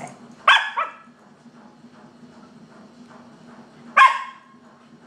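Pet dog barking during rough play: a sharp double bark about half a second in, then a single loud bark about four seconds in.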